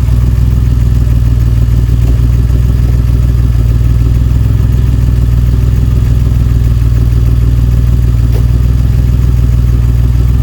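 DeLorean DMC-12's freshly swapped engine idling steadily while running rich, with the exhaust gas analyser reading about 5.5% CO against a 2% target.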